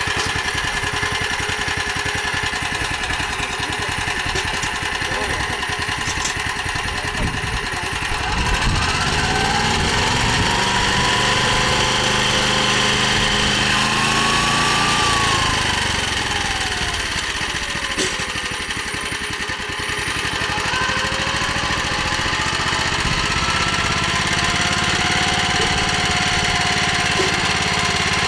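Motor Sich MB-4.05 walk-behind tractor engine running steadily. Its speed rises from about eight seconds in, drops back a few seconds later, then picks up again.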